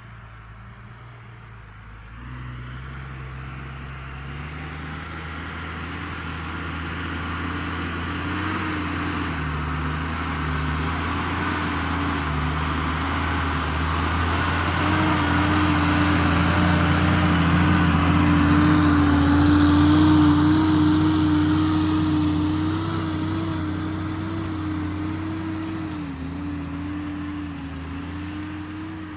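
New Holland TM140 tractor's diesel engine running steadily under load while pulling a four-furrow Kuhn plough. It grows louder as it approaches, is loudest about two-thirds of the way through, then fades as it moves away.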